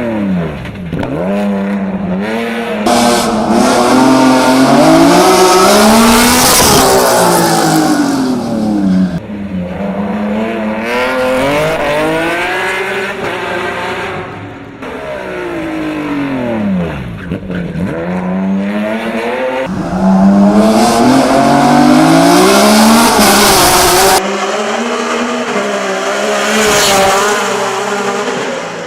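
Race car engines at full throttle on a hill climb course: the engine note drops as the car slows for corners, then climbs steeply as it accelerates hard again, repeated several times with abrupt jumps between clips.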